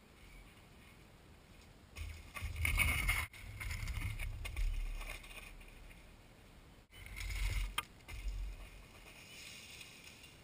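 Mountain bike riding down a dirt trail: tyre noise and the bike rattling over rough ground, with wind rumbling on the camera microphone. It comes in two loud stretches a few seconds apart, after a couple of quieter seconds, and breaks off suddenly at cuts.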